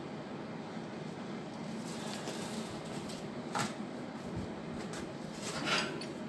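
Steady background noise of a workshop, with a faint click about three and a half seconds in and a soft knock near the end.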